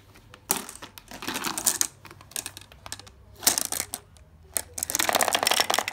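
Glass marbles rolling on a plastic marble-run track, clicking and clattering against the track and each other in several rapid bursts, busiest near the end.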